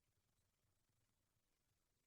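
Near silence: only faint background hiss and a low electrical hum.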